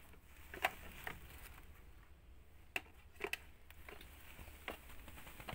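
Cats scrambling about a wooden stool: scattered light taps and scuffs of paws and bodies on wood and floor, with a few sharper knocks, the loudest about half a second in and near three seconds in.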